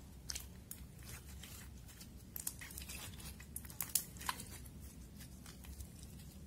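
Glossy slime being kneaded, squeezed and stretched by hand as eyeshadow is mixed in, giving a run of short, sticky clicks and pops. They come thickest and loudest around the middle, with the sharpest pop about four seconds in.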